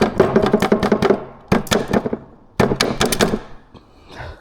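A hand-held power tool, likely a cordless ratchet or driver working on the engine's fasteners, runs in three short bursts: rapid clicking over a steady motor tone. A few light taps follow near the end.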